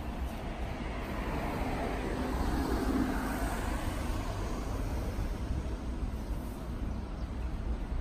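Road traffic noise: a steady rumble of tyres and engines, swelling as a vehicle passes about three seconds in.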